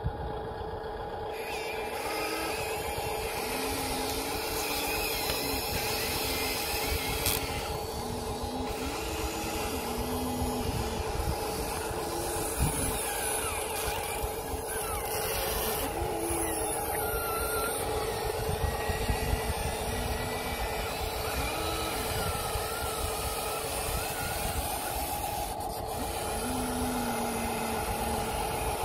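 Electric motors and gearboxes of a Huina radio-controlled excavator whining in short spells as it digs, swings and loads a dump truck, over a steady mechanical hum.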